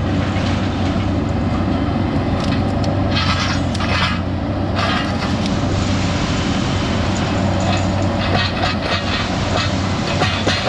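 Engine of a compact grapple machine running steadily under load while it pulls out bushes, with irregular bursts of crackling and scraping from branches and brush being torn out.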